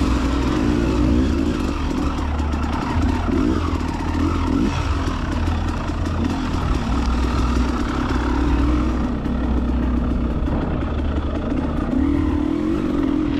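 Enduro dirt bike engine running at low to middling revs on a rough trail, the revs rising and falling as the throttle is worked in short blips.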